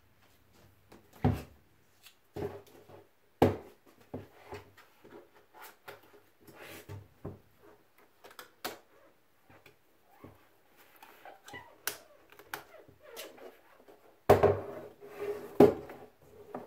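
Graco Booster Deluxe booster seat's hard plastic shell being handled and turned over on a tabletop: scattered knocks and scrapes, with sharp knocks about a second in and three seconds in and a cluster of louder knocks and rubbing near the end.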